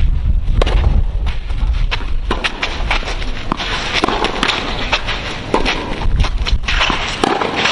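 Tennis rally on a clay court: sharp racket strikes and ball bounces, with shoes scuffing and sliding on the clay. Wind rumbles on the microphone at the start.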